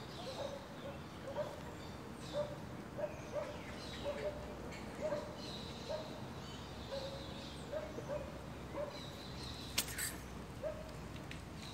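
Short animal calls repeated about once or twice a second over steady outdoor background noise, with one sharp click about ten seconds in.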